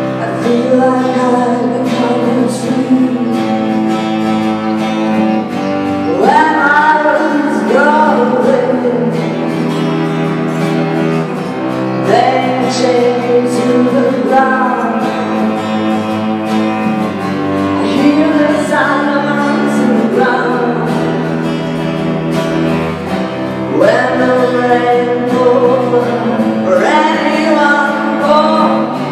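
A woman singing slow folk phrases, each swooping up in pitch at its start, over sustained low cello notes.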